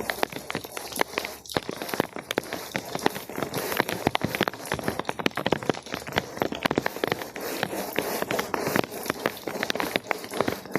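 Rain falling on hard surfaces and a wet rug, a steady hiss with many sharp, irregular taps.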